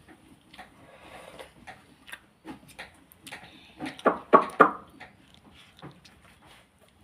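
Indian ringneck parrot making quiet clicks and short chattering sounds, with a quick run of louder ones about four seconds in.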